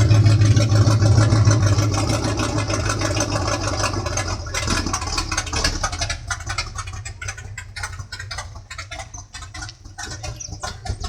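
Ford F-100 V8 engine idling with a steady low rumble, growing fainter over the second half.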